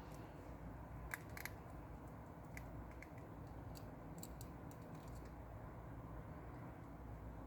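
Faint light clicks and taps of small smartphone parts and tools being handled during reassembly, scattered in a few clusters over a steady low hum.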